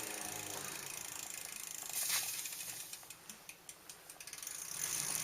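Bicycle being ridden, with a bump about two seconds in followed by a run of rapid, evenly spaced mechanical ticks from the drivetrain.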